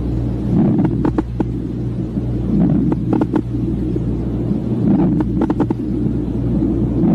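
Lung sounds heard through a stethoscope: a steady low rumble with a breath swelling about every two to two and a half seconds, and clusters of short clicks in each breath.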